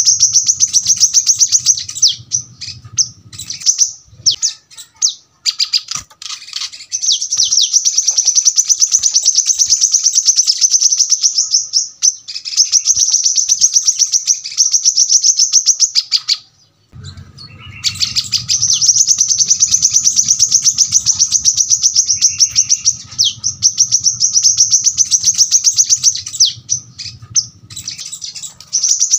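Brown-throated sunbird (kolibri kelapa) singing long runs of very rapid, closely spaced high notes, the tight rapid-fire 'tembakan rapat' song. The runs last several seconds each and are broken by short pauses, the longest about two-thirds of the way through.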